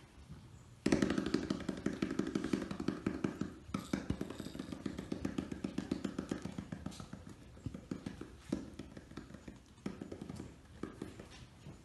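Hands drumming quick, rhythmic thumps on a small rubber ball, starting about a second in and running on with a few short breaks: the signal that calls the Samoyed puppies to play.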